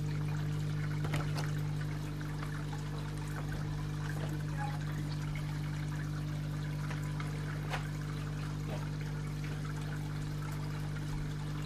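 Water trickling and splashing steadily into a garden pond, with a steady low hum underneath.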